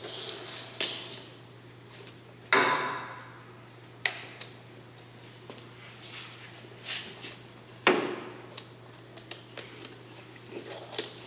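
Knocks and clatter as 1¾-inch fire hose is folded into an aluminium diamond-plate bumper hose tray, with the hose and its metal couplings striking the tray. Two loud knocks come about two and a half seconds and eight seconds in, among lighter clicks, over a steady low hum.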